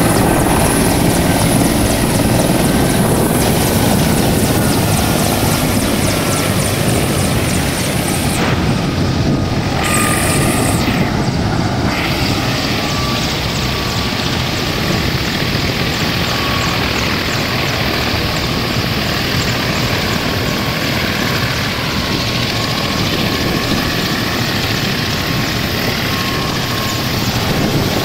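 Mi-35 military helicopter running on the ground: a steady, loud rotor and turbine noise with a faint high whine over it.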